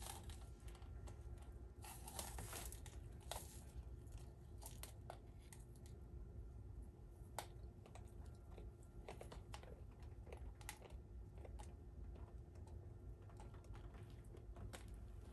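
Plastic spoon clicking and scraping against a plastic cup as candy gloop is stirred: scattered light clicks, with a longer scraping rustle about two seconds in.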